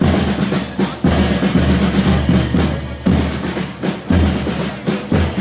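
Procession music with a heavy drum beat, about one strong stroke a second, over held low notes.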